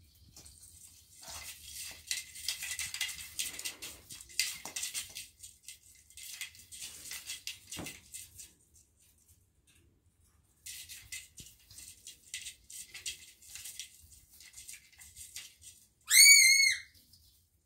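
Christmas tree branches and ornaments rustling and crackling as a kitten paws and climbs at them, in two spells with a short pause between. Near the end, a short, loud, high-pitched squeak.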